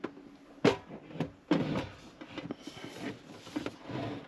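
A portable camping stove with a glass-lidded pot on it is lifted and moved about, giving several knocks and clatters. The sharpest knock comes about two thirds of a second in, and a longer clatter follows about a second and a half in.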